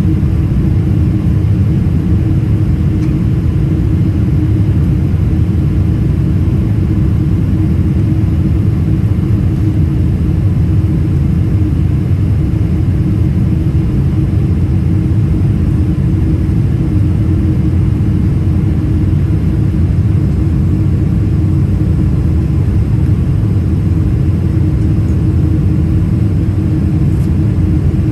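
Cabin noise of a Boeing 777-300ER climbing after takeoff: its GE90-115B engines and the airflow heard through the fuselage as a steady deep rumble with a constant hum.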